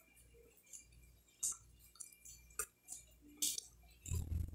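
Fingers working food on a glass plate for hand-eating, with a few light clinks against the glass about a second apart. Near the end comes a louder, muffled sound as a handful of food goes into the mouth.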